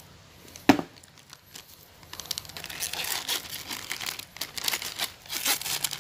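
A single sharp knock about a second in, then clear plastic packaging crinkling and rustling as it is handled, steady crackling from about two seconds on.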